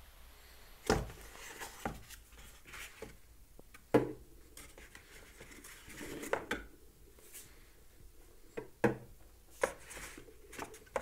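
Scattered knocks, clicks and light clatter of hands working at a kitchen counter: an electric hot plate's knob turned, a cloth wiped about, and eggs and a cardboard egg carton handled. The sharpest knock comes about four seconds in.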